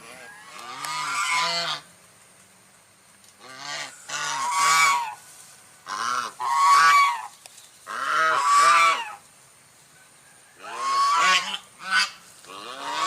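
White goose honking: about six bouts of loud, rapid nasal honks, each bout lasting a second or so, separated by short pauses.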